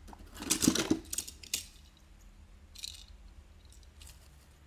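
Toy cars clattering and knocking against each other as a hand rummages through a cardboard box full of them, in a quick run of knocks over the first second and a half, then a couple of lighter clicks.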